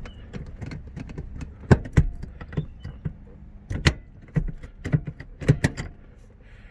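Hurst ratchet shifter in a first-generation DSM clacking as its lever is worked through the gated positions: a run of sharp, irregular clicks and clacks, the loudest about two seconds in.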